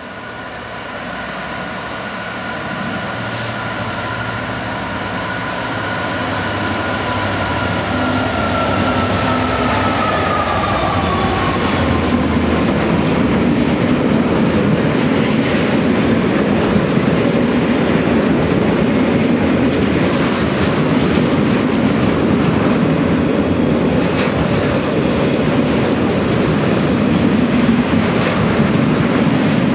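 A Class 66 diesel-electric freight locomotive approaches and passes, its engine and a high whine growing louder, then dropping in pitch as it goes by about ten seconds in. A long train of tank-container wagons then rumbles past, wheels clattering over the rail joints.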